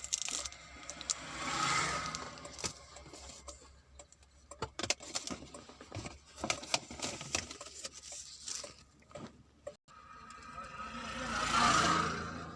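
Handling noise from a camera and its packaging: scattered sharp clicks and taps, with two swelling rustles, the louder one near the end.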